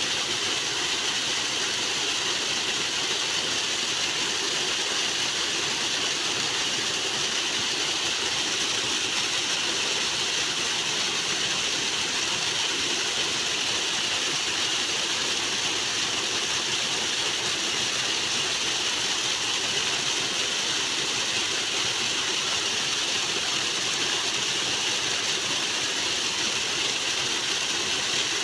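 Water rushing loudly and steadily, an unbroken hiss of flowing water.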